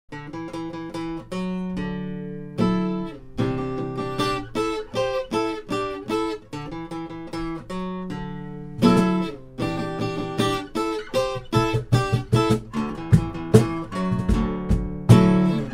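Acoustic guitar playing a picked introduction, its notes ringing on, starting abruptly. Harder strums come about two and a half seconds in and again near nine seconds, and in the last few seconds the playing gets busier, with quicker strokes.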